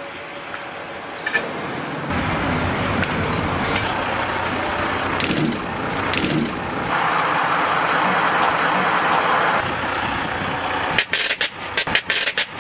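Rail wagon steel wheels rolling slowly along the rail with a steady rumble, running over and crushing objects laid on the railhead. Near the end comes a quick series of sharp cracks as a row of small red objects on the rail is crushed and bursts into flashes of fire.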